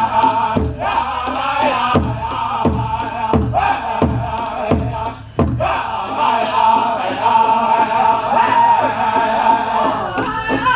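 Powwow drum group singing a chicken dance song in high, ringing voices over a big shared bass drum. In the first half the drum lands heavy, spaced strokes about every 0.7 s. After a brief drop near the middle, the steady drumbeat and singing carry on.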